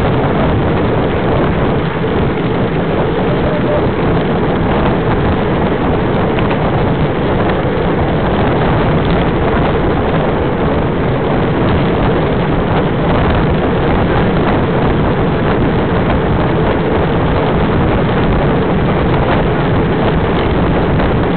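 Steady rush of wind on a bike-mounted camera's microphone, mixed with the tyre and road noise of a moving road bike riding in a group.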